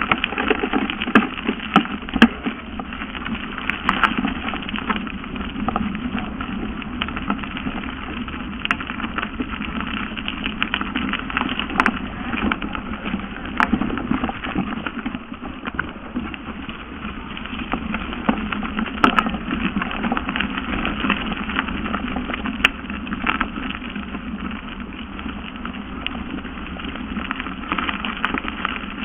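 Mountain bike riding fast downhill on a leaf-covered dirt forest trail: steady rushing tyre and riding noise, with frequent short sharp rattles and knocks as the bike goes over bumps.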